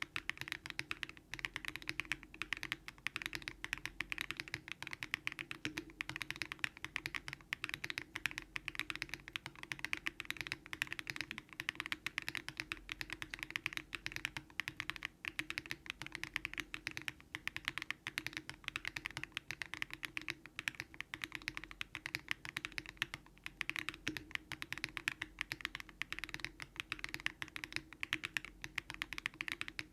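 Daring Run Polygon-7 custom mechanical keyboard, built with Keygeek LM switches on an FR4 plate with full foam, typed on quickly and without a break: a dense, steady run of keystrokes.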